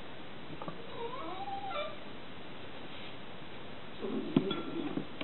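A cat meows once, a short call that rises and falls in pitch, about a second in. Near the end come a few light knocks and rustling.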